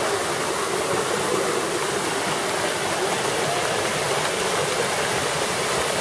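Steady rush of a waterfall pouring down a rock face into a pool.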